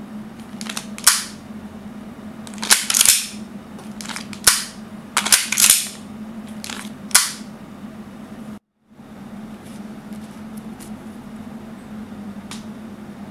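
Tokyo Marui Hi-Capa gas blowback airsoft pistol firing: about seven sharp cracks over the first seven seconds, some in quick pairs with a short hiss after them. A few faint clicks follow near the end.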